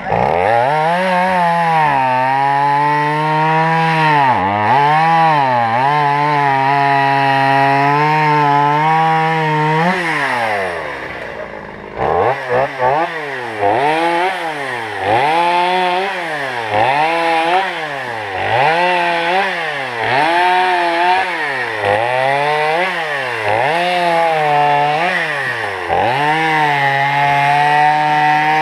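Two-stroke chainsaw running at high speed, its engine pitch repeatedly dipping and climbing back. The pitch drops briefly about ten seconds in, and in the second half it rises and falls roughly once a second.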